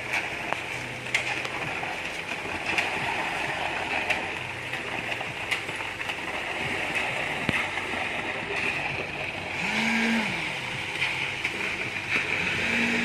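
Concrete pump truck running: a steady noisy rush with scattered clicks. About ten seconds in, a pitched note rises and falls, and near the end a steady note comes in.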